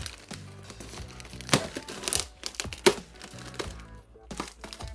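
Polythene wrap around a foam packing block crinkling and rustling as it is handled, in a few short, sharp strokes, over background music.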